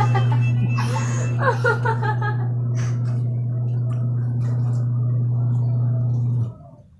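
A loud, steady low buzzing hum that stops abruptly about six and a half seconds in, with a brief voice over it near the start.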